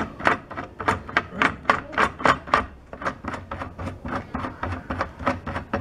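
Plywood stop block being worked along the steel threaded rod of a homemade circular-saw guide, clicking rhythmically at about three to four sharp clicks a second as it is moved up to clamp.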